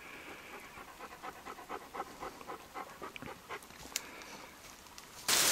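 A dog panting quickly and evenly, fading out after about four seconds. Near the end, heavy rain cuts in suddenly and much louder.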